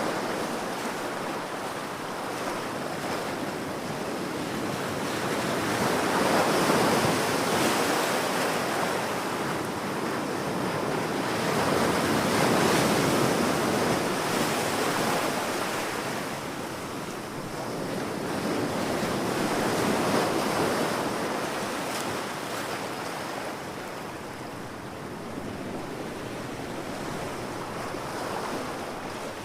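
Ocean waves breaking and washing on a beach, a continuous surf hiss that swells and ebbs every few seconds.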